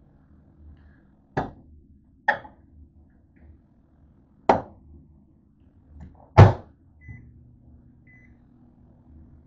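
Microwave oven door opened and a plate set inside: four sharp clunks, the loudest a door slammed shut about six seconds in. Then two keypad beeps a second apart, and the oven starts running with a steady low hum.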